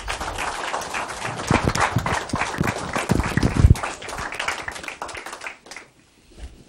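Audience applauding, with a few low thuds about three seconds in; the clapping thins out and dies away near the end.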